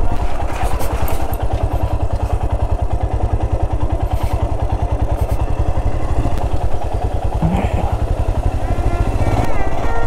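Motorcycle engine running steadily under way, with a rapid, even exhaust beat.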